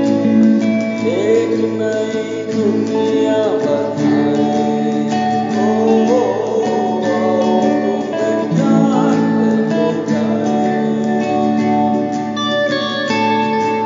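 Unplugged song with a strummed acoustic guitar rhythm and a melody line over it that glides and bends in pitch.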